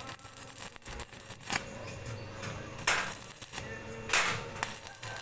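Metalwork on a sidecar frame in a repair shop: several short noisy bursts, each under half a second, with scattered clicks and knocks between them.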